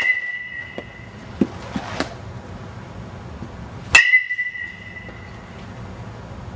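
Metal baseball bat hitting pitched balls in a batting cage. Each contact is a sharp ping with a ringing tone that fades over about a second and a half, one right at the start and one about four seconds in, with a few fainter knocks between them.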